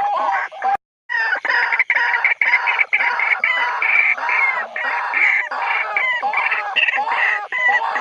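White-breasted waterhen giving its territorial calls: a dense run of rapidly repeated calls that cut out briefly about a second in, then start again.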